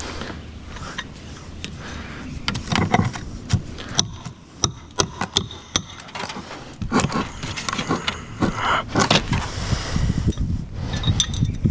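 A hammer striking a steel cat's paw nail puller to dig old nails out of rotted wooden fascia: a series of sharp, irregular metal-on-metal taps with some clinking and scraping, starting a couple of seconds in.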